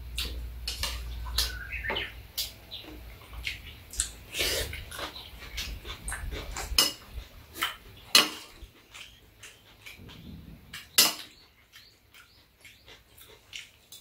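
Metal spoons clinking and scraping against a stainless-steel serving bowl and tray during a meal, with sharp clinks scattered throughout. The loudest clinks come about 8 and 11 seconds in.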